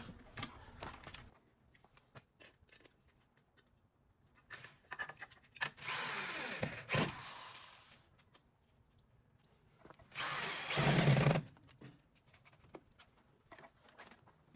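Power drill running in two bursts while drilling mounting holes: about two seconds, winding down at the end, then a shorter, louder one a few seconds later. Scattered small clicks and knocks between.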